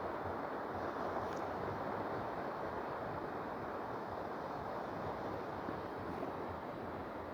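Steady rushing of surf and wind at an ocean beach, with wind buffeting the microphone.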